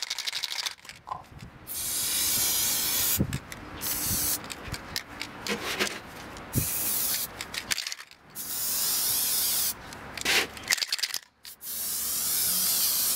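Aerosol spray paint can spraying black paint in several separate bursts of hiss, each lasting up to about a second and a half, with short pauses and small clicks between them.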